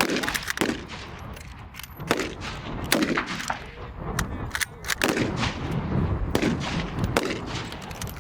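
Rifle shots from a firing line of bolt-action service rifles during a timed snap-shooting string: many sharp cracks at uneven intervals, some loud and near, others fainter and overlapping.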